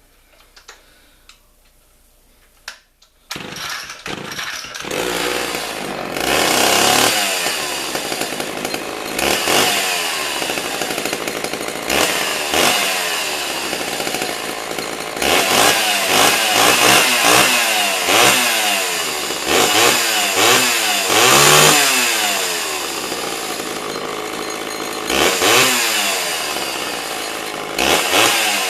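Homelite Big Red two-stroke chainsaw catching a little over three seconds in, after a few quiet seconds with small clicks, then running and being revved up and down again and again.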